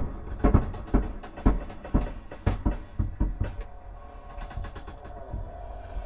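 A run of heavy thuds or knocks, about two a second, that dies away about three and a half seconds in, over a steady low hum.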